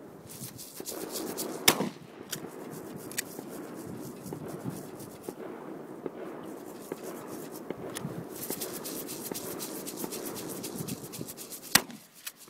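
Tannerite exploding-target mix (ammonium nitrate granules and aluminium powder) being shaken in its sealed plastic jar to combine the two components and activate it: a continuous gritty rattle and swish. Two sharp clicks stand out, one about two seconds in and one near the end.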